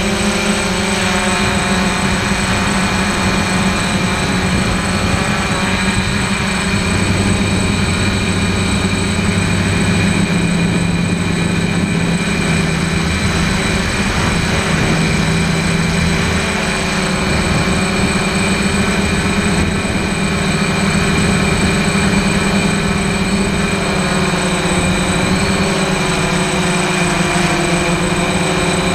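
DJI Flamewheel F550 hexacopter's brushless motors and propellers droning steadily in flight, heard close up from the onboard camera, the pitch wavering slightly with throttle changes over a constant hiss.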